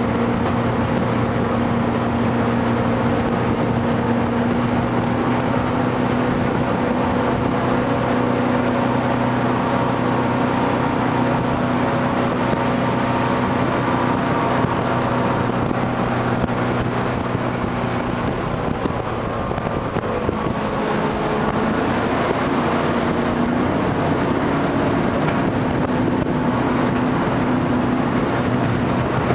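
Jet boat engine running steadily at speed, with a continuous rush of water and wind around the moving boat. About two-thirds of the way in, the engine note briefly eases, then settles at a slightly different pitch.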